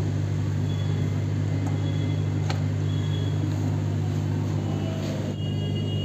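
Steady low electric hum of aquarium pump equipment, with a single sharp click about halfway through as the heater's plug goes into the wall socket.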